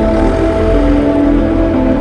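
Background music of long held notes over a steady low rumble.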